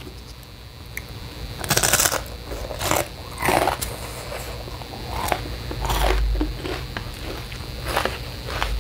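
Close-miked eating: Chapaguri noodles slurped and chewed in a series of short bursts, with a brief low thump about six seconds in.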